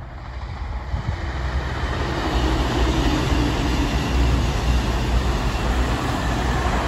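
CrossCountry Voyager diesel multiple unit, two sets coupled, passing close at speed. The underfloor diesel engines drone and the wheels rush on the rails, building over the first two seconds and then holding steady as the carriages go by.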